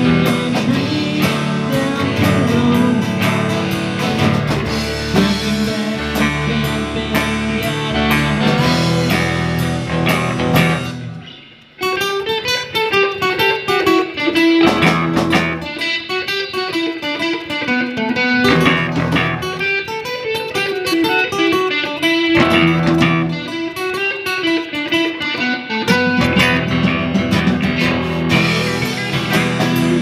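Live rock band playing with guitars, bass and drums. About eleven seconds in the sound briefly drops away, then comes back as a sparser, guitar-led passage of melodic notes, and the full band fills back in near the end.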